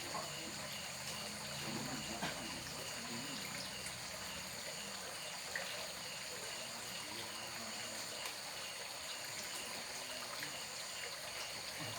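Water trickling steadily under a constant high-pitched hum, with a faint short chirp repeating about two to three times a second.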